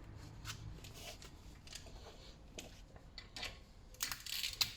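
Faint scattered metal clicks and taps of a small bolt and hand tool being handled while the brake disc's retaining bolt is refitted, then a louder burst of metal rattling and scraping near the end.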